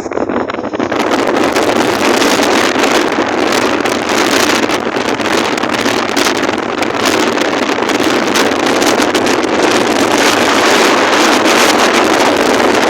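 Strong wind buffeting the microphone: a loud, steady rushing noise that grows louder about a second in.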